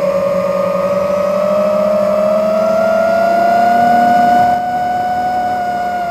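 FPV racing quadcopter's brushless motors and propellers whining in flight, heard from the camera mounted on the drone. The pitch rises gradually as it climbs, then holds. The sound gets a little quieter about four and a half seconds in.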